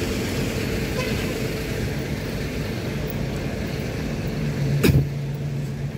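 A Tam Kargo coach bus's engine running as the bus drives slowly past at close range. A sharp, loud knock comes a little before five seconds in, followed by a steady low hum.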